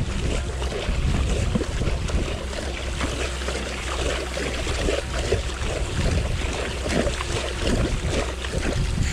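Hooked barramundi thrashing and splashing at the water's surface, irregular and continuous, with a steady low rumble of wind on the microphone.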